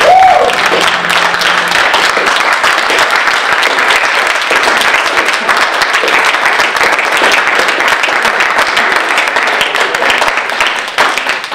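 Audience applauding in a hall, with the tail of the music still under the clapping for the first couple of seconds; the applause dies away near the end.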